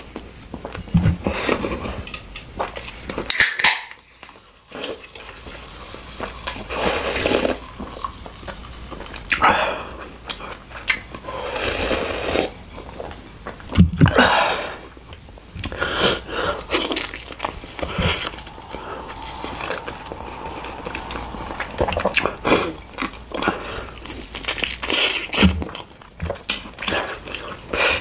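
Close-miked eating sounds: irregular chewing and biting, with cutlery and dishes clinking now and then.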